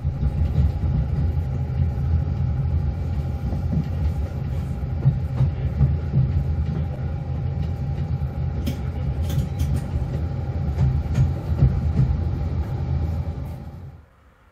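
Narrow-gauge diesel railcar (Jenbacher VT 137 515) running through a station as heard by someone riding on it: a steady rumble of engine and wheels on rail with a constant whine over it. A few sharp clicks come through around the middle. The sound cuts off suddenly shortly before the end.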